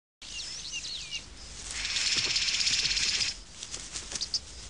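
Wild birds calling with quick up-and-down whistles for about a second, then a loud, steady, high buzzing hiss that lasts about a second and a half and cuts off abruptly, followed by scattered faint clicks and a short chirp.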